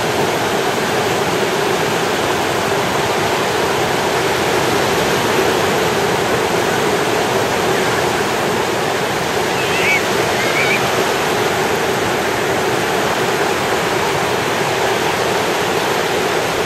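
Ocean surf breaking and washing up the beach, a steady, dense rush of noise with no pauses.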